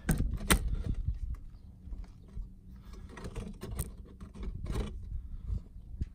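Irregular knocks and scrapes over a low rumble: handling noise as the phone camera is moved around inside a pickup truck cab.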